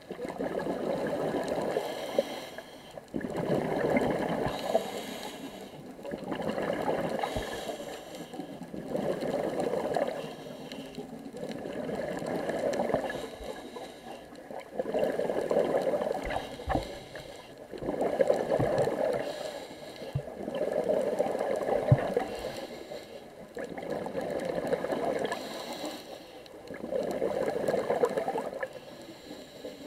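Scuba diver's breathing through a regulator underwater: bubbling, gurgling breaths that swell and fade in a slow, even rhythm about every three seconds.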